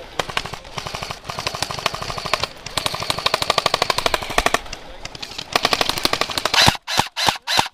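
Airsoft electric rifles, among them a custom AK105, firing rapid full-auto bursts as a fast, even clatter of shots. The fire breaks into a few separate single shots near the end.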